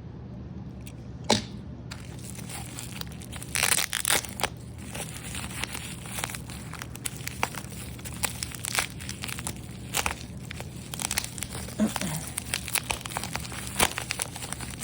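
Plastic blister packaging and the card backing of a Hot Wheels pack crinkling and crackling as they are handled and torn open, in a dense run of small irregular clicks. Before that, a single sharp click about a second in.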